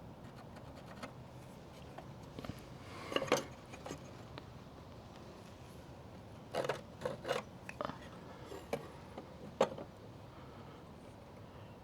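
Sporadic handling clatter: a few short clicks and rattles of tools and hardware being picked up and set down, in a cluster about three seconds in, a longer run of clatters past the middle, and a single click near the end.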